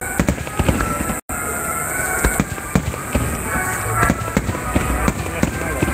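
Fireworks shells bursting in rapid succession, many sharp bangs and crackles overlapping. The sound cuts out for an instant a little over a second in.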